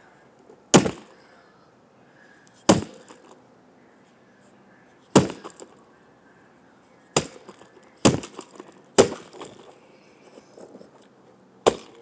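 A brick striking a Furby toy: seven sharp blows, one to two and a half seconds apart, each followed by a short clatter.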